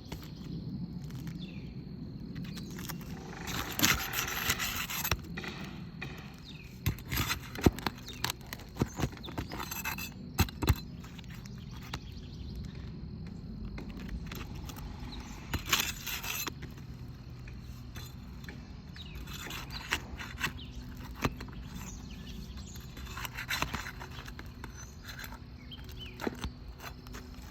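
Hand work on asphalt roof shingles: scattered sharp clicks and clinks, with several short scraping rustles as shingles are pried up and their nails loosened.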